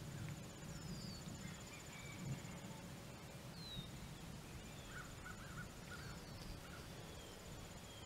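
Quiet open-country ambience: an insect trilling steadily on a high pitch, with scattered short bird chirps and a short run of calls about five seconds in, over a low rumble of wind.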